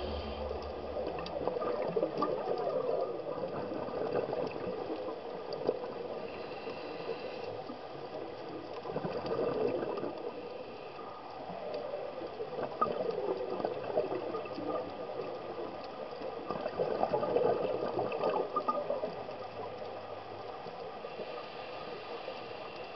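Underwater bubbling and gurgling from a scuba diver's exhaled breath, heard through the camera's housing, swelling and fading every few seconds.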